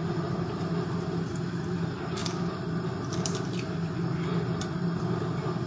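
Steady low hum in the background, with a few faint sharp taps as eggs are cracked and dropped into a dry nonstick frying pan.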